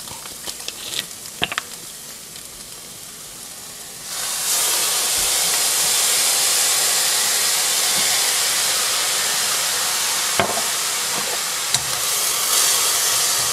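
Soy sauce poured into a hot skillet of cauliflower fried rice, sizzling with a loud, steady hiss that starts suddenly about four seconds in as it deglazes the pan. A few light clicks come before it, and the hiss carries on as the rice is stirred with a wooden spatula near the end.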